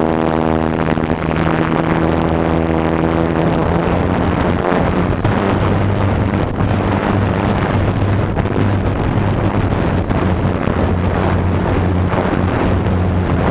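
Electric motor and propeller of a GWS Slow Stick RC plane running under power, a steady pitched drone over a noisy rush.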